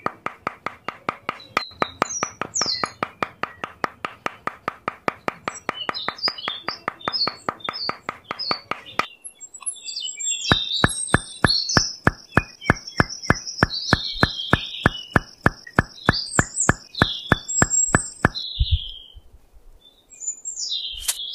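Birds chirping over an even, rhythmic tapping beat of background music. The beat stops about nine seconds in, and a slower beat with a steady high tone above it starts a second or so later and stops near the end.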